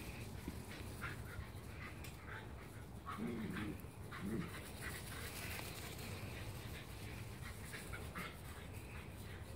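Shiba Inu dogs panting in quick, short breaths while playing, with a brief low wavering sound about three seconds in.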